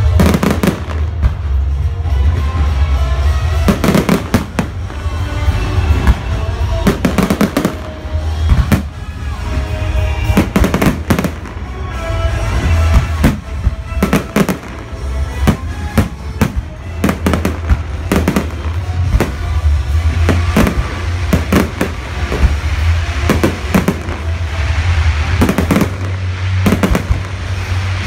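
Fireworks display going off: many sharp bangs and cracks in quick, irregular succession from aerial shells and crackling effects, with music playing underneath.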